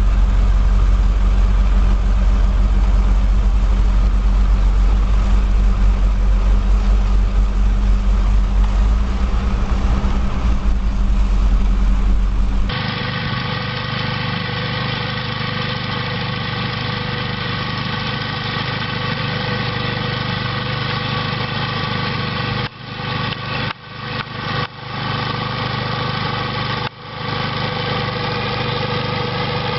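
Machine engines running steadily: a deep low rumble for the first half, then, after a cut about 13 s in, a higher, even engine hum with a few brief dropouts near the end.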